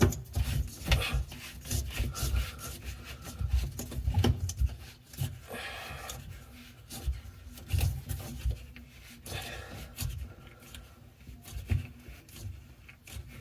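Sink drain parts being handled, fitted together and tightened by hand under a bathroom vanity: irregular rubbing and scraping with scattered clicks and knocks.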